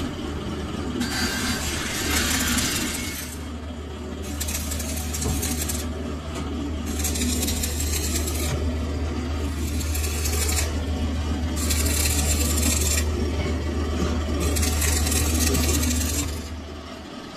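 Electric arc welding on a steel shaft: the arc crackles and sizzles in about six runs of one to two seconds each, with short breaks between them. A steady low hum runs underneath and drops away near the end.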